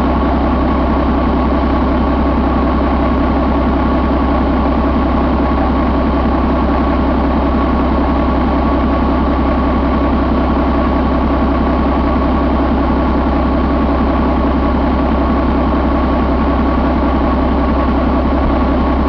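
2019 Volvo D11 inline-six diesel engine idling steadily, with a thin steady whine over the engine note.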